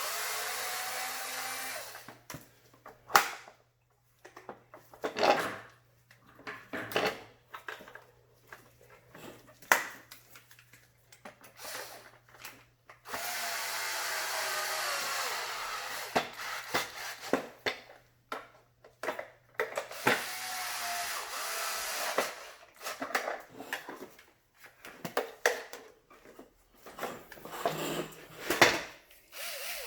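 A cordless power screwdriver drives screws into a vacuum's plastic housing in three short runs of whirring, with knocks and clicks of the parts being handled in between.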